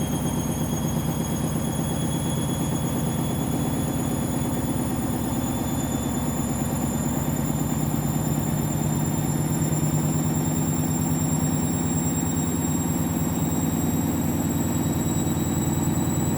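Washing machine spinning a load of towels. The drum speeds up slowly, its motor whine rising gradually in pitch over a fast, rhythmic low rumble.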